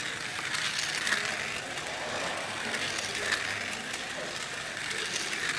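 Scalextric slot car running laps on its track, its small electric motor and pickups whirring steadily with swells every second or two.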